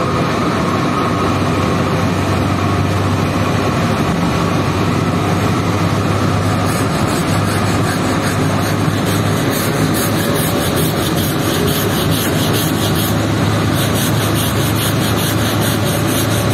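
Small stiff hand brush scrubbing the wet, soapy fringe of a rug in quick repeated strokes, starting about halfway in, over a steady low hum and rushing noise.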